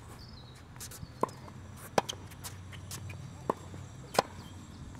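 Tennis rally: sharp pops of a racket striking the ball about every two seconds, with softer ball bounces on the hard court between.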